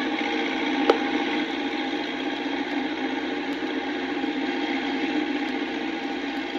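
An engine idling steadily, with a single sharp click about a second in.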